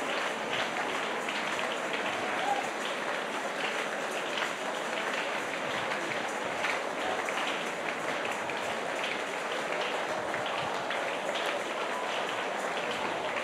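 A church congregation praying aloud all at once, a steady din of many overlapping voices with no single voice standing out.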